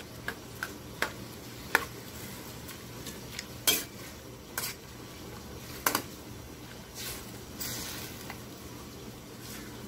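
A metal spatula stirring and lifting miki noodles in a stainless steel wok of simmering sauce, scraping and clinking against the pan at irregular moments, three clinks louder than the rest. A short hissing scrape comes near the end.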